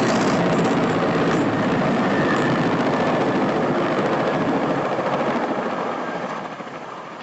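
Helicopter running close by, a loud steady rotor and engine noise that fades away over the last couple of seconds.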